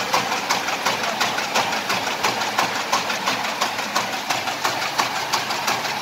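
Steelfast PBM 400 paper bag making machine running at production speed, turning out kraft paper bags: a steady, rhythmic mechanical clatter of about four sharp clacks a second.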